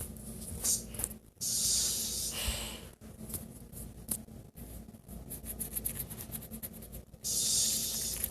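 Two drawn-out hisses: one about a second and a half long, then a shorter one near the end. In between there are quick, light ticks.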